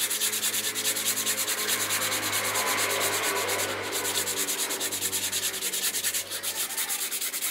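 Hand sanding of a bamboo fishing rod section with sandpaper: rapid, even back-and-forth rubbing strokes, with a short break about four seconds in.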